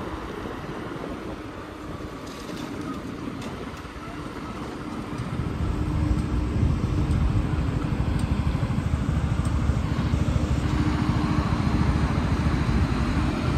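Motorcycle engine running, with wind and road noise on the microphone. From about five seconds in it grows louder and settles into a steady low hum at an even engine speed.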